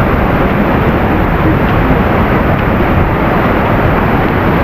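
Loud, steady rush of falling water from a large waterfall, close to the microphone.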